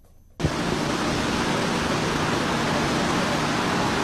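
Steady rushing of water released through a raised spillway shutter of the Cheruthoni dam, starting suddenly about half a second in.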